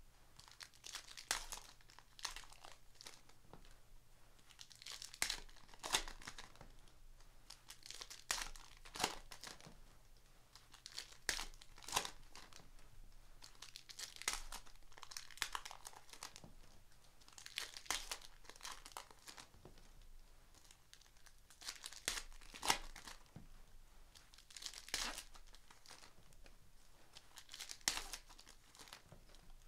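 Foil wrappers of Panini Hoops basketball card packs being torn open and crinkled, in short rustling bursts every second or two.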